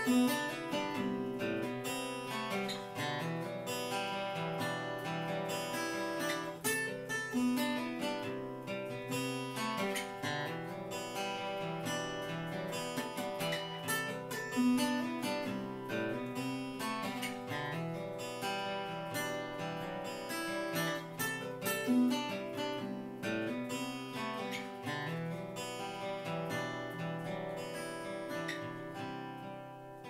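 Two acoustic guitars strumming chords together in the closing bars of a song, dying away near the end.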